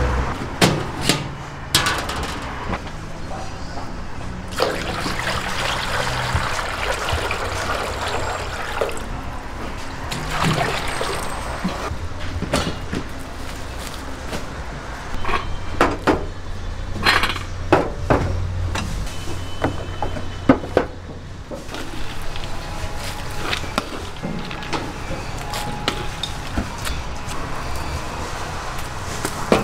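Cooking-stall prep sounds: scattered knocks and clatter of metal pans and utensils, with stretches of rustling from plastic bags, over a steady low hum.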